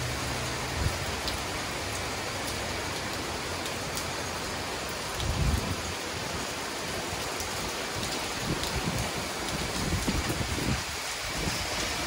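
Heavy shower of rain pouring down in a steady, dense hiss, with a few low thumps about halfway through and again near the end.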